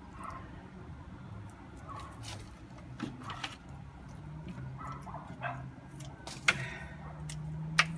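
Dry aerial roots and string being handled, with two sharp snips of scissors cutting the string, about six and a half seconds in and near the end. A faint low whine that shifts in pitch runs underneath.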